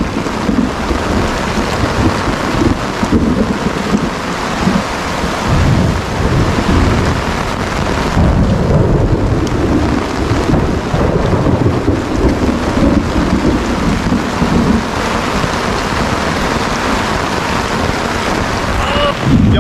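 Heavy downpour of rain with thunder rumbling repeatedly through it, in a severe thunderstorm.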